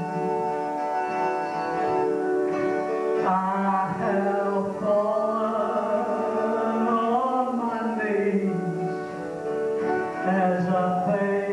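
Live gospel music led by a harmonica played into a microphone: a reedy melody of held notes that bend and change every second or so.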